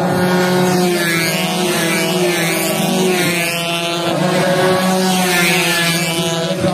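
Several racing underbone motorcycles running hard at high revs, their engine notes rising and falling as they ride past.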